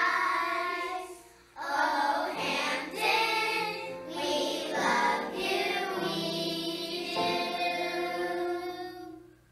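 Children's choir singing a school song, with a short break about a second and a half in; the singing fades out near the end.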